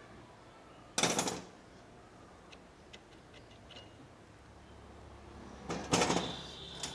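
Two short bursts of clatter about five seconds apart, with a few light ticks between: hand tools and metal engine parts being handled during motorcycle repair work.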